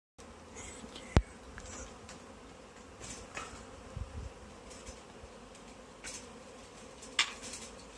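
Honeybee swarm buzzing steadily, with a sharp click about a second in, a few rustles and knocks, and a louder clatter near the end from the pole and plastic bag being handled.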